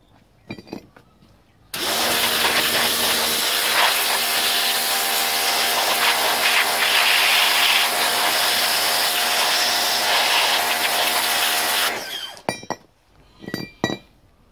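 Pressure washer jet blasting a brake caliper on wet asphalt. The spray hiss comes with a steady pump hum, starts suddenly about two seconds in and cuts off about ten seconds later. A few clicks and knocks near the end as the caliper is handled.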